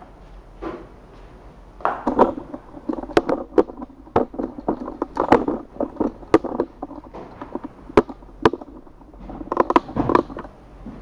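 Handling noise from a light aluminium camera tripod and the filming camera being moved about: an irregular run of sharp clicks, knocks and rustling that starts about two seconds in, with a louder cluster near the end before it dies away.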